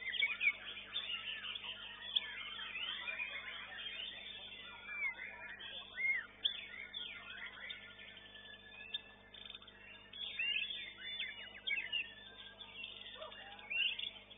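Many caged songbirds singing at once on a bird-song contest ground: a dense, overlapping mix of chirps, trills and whistles. It is busiest in the first few seconds, thins out in the middle, and picks up again near the end.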